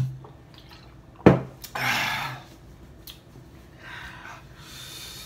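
A sharp knock a little over a second in, then hissing breaths through an open mouth: a loud exhale just after the knock and quieter breaths near the end, people panting against the burn of very spicy noodles.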